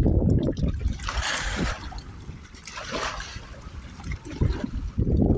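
Splashing, trickling water with two short splashy rushes, about a second in and around three seconds, over a low, gusty rumble of wind on the microphone at the start and near the end.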